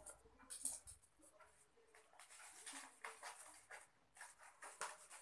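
Bubble wrap being handled and cut open with scissors: soft, irregular plastic crinkling and rustling in short bursts, busiest in the second half.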